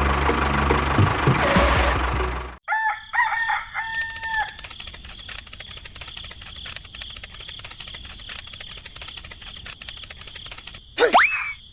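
A small engine runs for about two and a half seconds and cuts off abruptly; a rooster then crows, followed by quieter background with a steady high hum and regular ticking.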